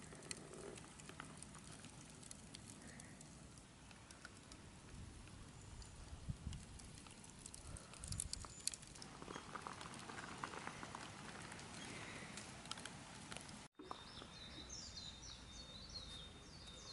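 Faint outdoor ambience around a charcoal grill, with a few light clicks and crackles. After a cut near the end, a bird chirps in a quick run of short high notes.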